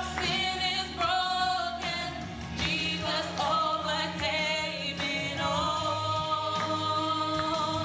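Gospel worship song: voices singing long held notes with vibrato over a steady instrumental accompaniment.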